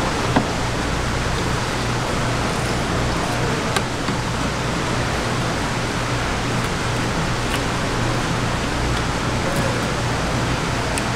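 Steady even background noise with a low hum, and a couple of short sharp clicks, about half a second and about four seconds in, from a knife against a plastic cutting board while a flounder is filleted.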